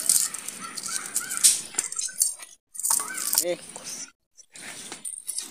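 Knife chopping on a board, with sharp cuts and light metal clinks, and voices in the background.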